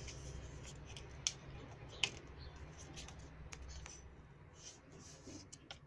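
A sheet of A4 paper being folded and creased by hand: faint rustling with scattered crisp clicks, two sharper ones at about one and two seconds in.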